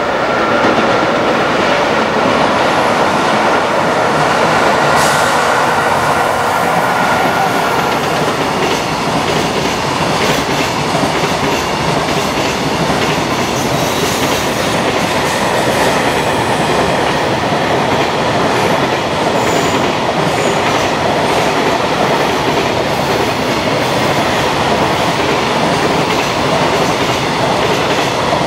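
Container freight train passing close at speed: a loud, steady rumble and clatter of wagon wheels on the rails. A thin high whine sounds at first and fades out about eight seconds in.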